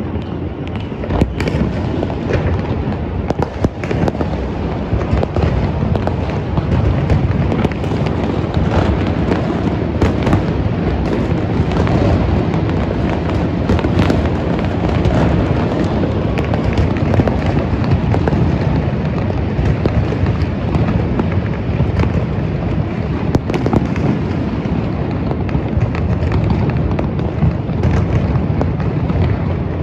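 A dense, unbroken barrage of New Year fireworks and firecrackers going off: many overlapping bangs with no pause between them.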